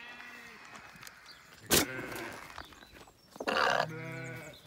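A sheep bleating: one bleat trails off at the start, and a longer one comes near the end. A single sharp knock falls in between.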